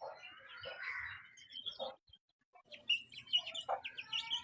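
Chicks peeping, with many short, shrill chirps. The sound breaks off for about half a second near the middle, then comes back as denser peeping.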